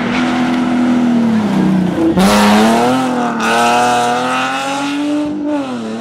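Nissan 350Z rally car at high revs as it comes up the stage. Its engine note drops about two seconds in on a gear change, picks up again sharply and pulls hard, then dips briefly once more near the end.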